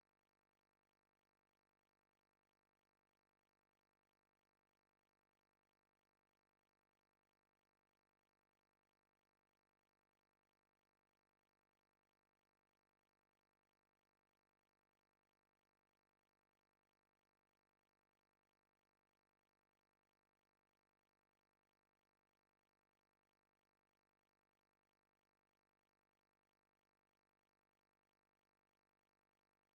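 Near silence: a faint, steady noise floor with no distinct sound.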